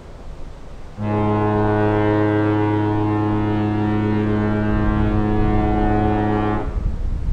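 A ship's horn sounds one long, deep, steady blast of about five and a half seconds that starts and stops abruptly.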